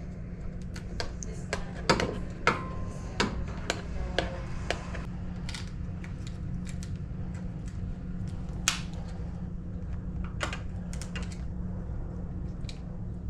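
Irregular clicks and light knocks of metal lock hardware and hand tools being handled during a deadbolt installation, over a steady low hum. The clicks come thickest in the first few seconds and thin out later, with one sharper knock about nine seconds in.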